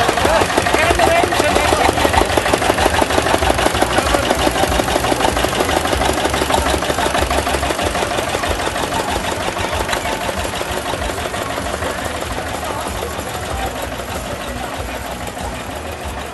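Vintage tractor's engine chugging with a rapid, even firing beat as it drives past close by, fading slowly as it moves away.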